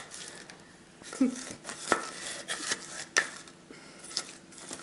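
Hand-twisted plastic garlic grinder being turned, giving irregular sharp clicks as the chopped garlic is ground, with one brief vocal sound about a second in.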